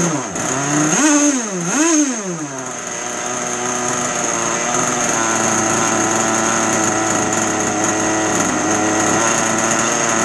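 Zenoah two-stroke gas engine in an RC boat, running on the bench with no load. It is blipped twice early on, revving up and dropping straight back each time, then runs steadily. Its throttle response is real smooth after the carburettor was dialled in for a bench setting.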